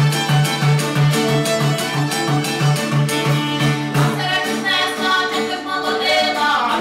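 Folk band music: a fiddle over a steady pulsing bass line of about three beats a second, with a voice singing from about four seconds in.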